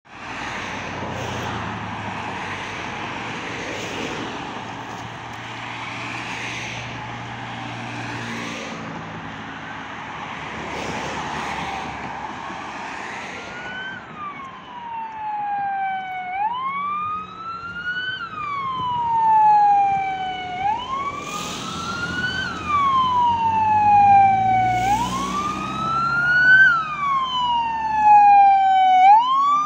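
Scania P450 heavy fire engine on an emergency run. About halfway in, its siren wail rises out of the road and engine noise, climbing quickly and falling slowly every couple of seconds and growing louder as it comes on, with a few short loud blasts over it.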